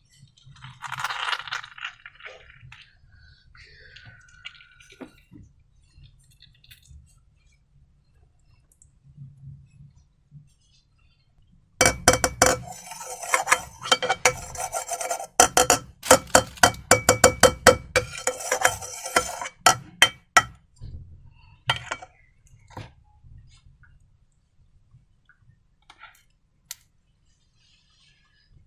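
A utensil stirring and clinking against a hard bowl while slime is mixed. A dense run of rapid ringing clinks starts about twelve seconds in and lasts about eight seconds, with scattered lighter taps around it.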